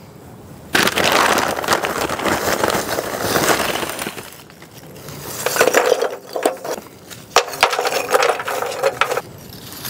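Lump charcoal rattling and crunching as it is dug out of its bag by hand, then pieces clinking and knocking as they are set into a metal barbecue tray.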